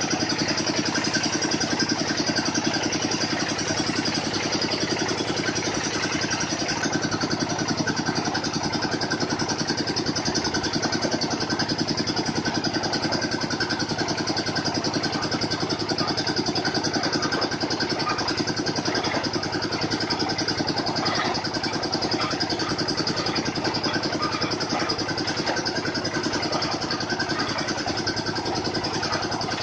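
Engine of a water-well drilling machine running steadily at a constant speed.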